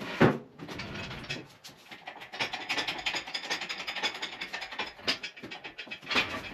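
Engine hoist being cleared away: a sharp metal knock, then a run of rapid metallic clicking and rattling with a few more knocks near the end.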